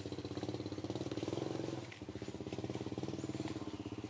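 A small engine running steadily with a fast, even pulse, its sound dipping briefly about two seconds in.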